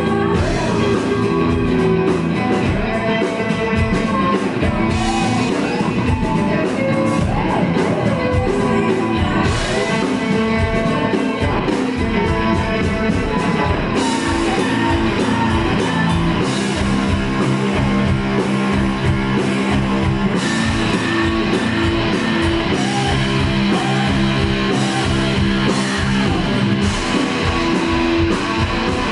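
Live rock band playing: a woman singing lead over electric guitar and drums, loud and continuous.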